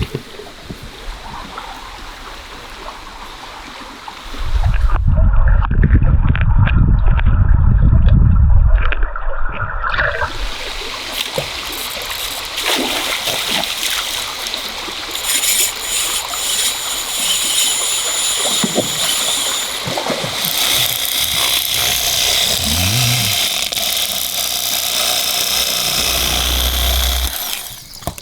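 River water rushing and splashing, with a loud low rumble taking over from about five to ten seconds in.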